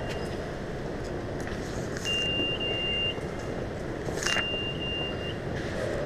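MetroCard reader on a subway turnstile: a card swiped through the slot, then a high steady beep lasting about a second, twice. The beep is the reader rejecting a swipe made too fast or too slow.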